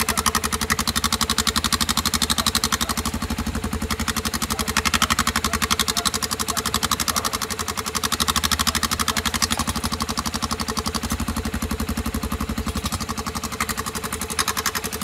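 Honda XRE 300's single-cylinder engine idling, its exhaust putting out a steady rapid pulse, with a washer wedged into the muffler outlet to change the exhaust note. The level swells slightly a couple of times.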